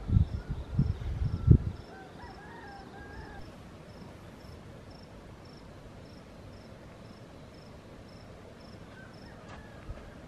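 Crickets chirping steadily at night, a high pulse repeating about three times a second. Low rumbling thumps on the microphone fill the first two seconds, and a faint wavering call is heard about two seconds in.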